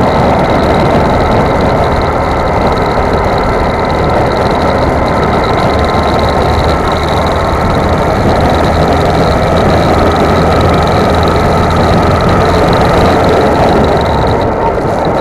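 Go-kart engine running at speed, heard from on board the kart, with a steady pitch that drifts slightly up and down through the lap.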